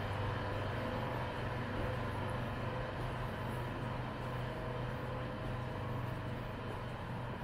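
A steady low mechanical hum with outdoor street noise, unchanging throughout.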